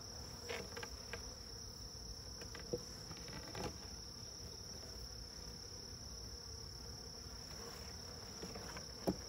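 Crickets calling in a steady, high-pitched chorus, with a few soft knocks of wooden hive boxes being handled, more of them near the end.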